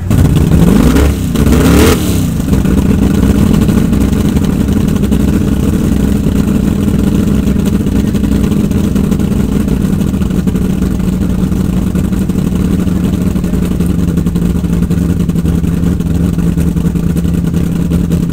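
Mud drag race truck engine revved twice in quick rising blips, then held at a steady note that sinks very slightly.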